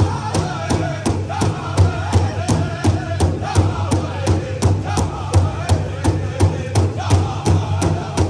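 Powwow drum group: several singers striking a large shared powwow drum with sticks in a fast, even beat, about three strokes a second, while they sing a high, wavering chant together in the northern style.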